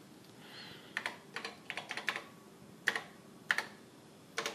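Typing on an Apple II Plus keyboard: a quick run of key clicks about a second in, then a few spaced presses, as a file name is keyed in at a prompt.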